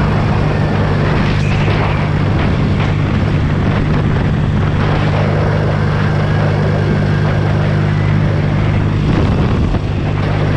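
BSA A65 Lightning's 650 cc parallel-twin engine running steadily at an even pitch.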